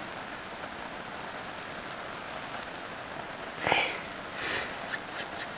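Wood campfire hissing and crackling steadily. Thick gravy is poured over rice in a hot steel pot, making two brief louder wet splats about three and a half and four and a half seconds in, with a few small ticks near the end.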